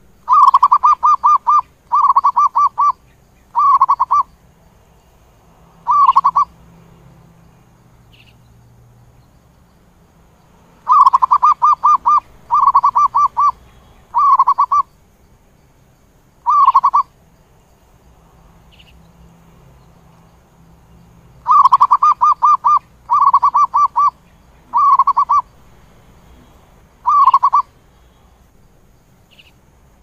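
Zebra dove singing: three bouts about ten seconds apart, each of four short phrases of quick, rapidly repeated coos, the last phrase of each bout coming after a short gap.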